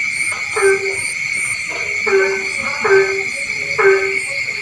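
A frog calling four times, each call a short rough croak that settles into a held low note lasting about a third of a second, over a continuous high-pitched night chorus with a faint, evenly pulsing high chirp.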